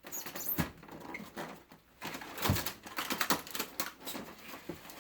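Handling and unpacking of a boxed airsoft rifle: irregular rustling with a quick run of clicks and knocks, and a couple of heavier thumps, the loudest about two and a half seconds in.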